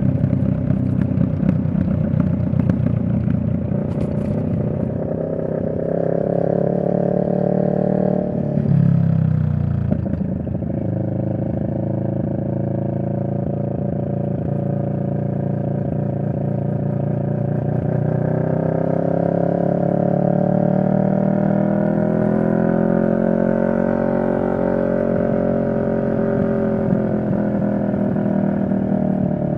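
2023 CFMoto 650NK's 649 cc parallel-twin engine running under way, its note climbing as the bike accelerates. A little over eight seconds in the pitch drops sharply and then climbs again, and later it rises and eases off in slow swells.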